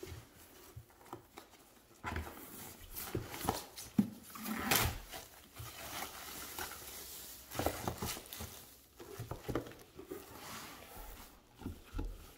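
Plastic packaging rustling and crinkling in irregular bursts as the wrap and foam sheet are pulled off an air fryer inside its cardboard box, with light knocks of handling.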